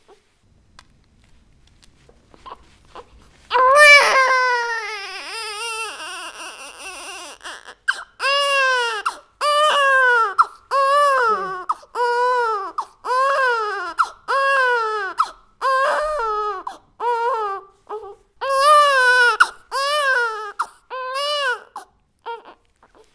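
Baby crying hard. After a few quiet seconds there is one long wail, then a run of short cries at about one a second, each rising and falling in pitch.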